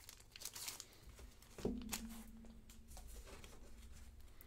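Faint rustling and soft clicks of baseball cards and a plastic card holder being handled and shuffled, with a faint low hum for about a second and a half in the middle.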